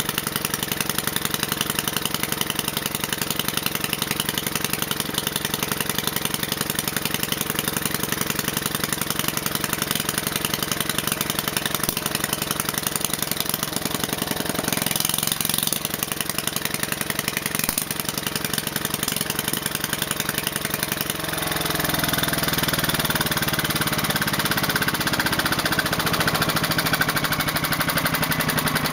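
The single-cylinder, 6-horsepower Briggs & Stratton engine of a 1967 McCulloch Mite-E-Lite generator running steadily. About three-quarters of the way in its note changes, getting a little louder, and the pitch slowly sinks.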